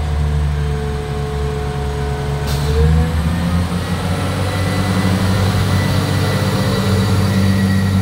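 Irish Rail 22000 Class diesel multiple unit pulling away, its underfloor diesel engines running at a steady low drone that rises in pitch about three seconds in as they throttle up.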